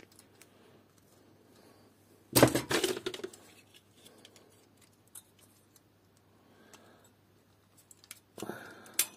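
Side cutters snipping the plastic push-pin legs off an Intel stock CPU cooler: a quick cluster of sharp snaps a little over two seconds in, then quiet handling, with a few more clicks near the end as a knife trims the plastic stubs.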